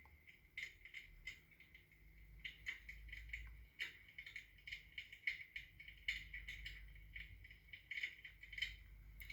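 Faint, irregular crackling clicks from an electric fireplace hearth, its imitation wood-fire crackle, over a low steady hum.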